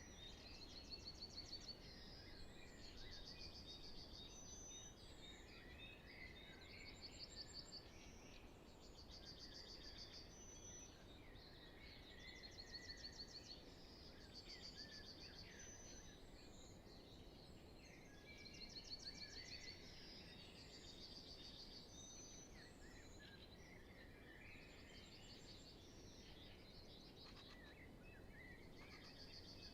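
Faint spring dawn chorus: many birds singing, with rapid trilled phrases recurring every couple of seconds and short high notes over a soft steady hiss.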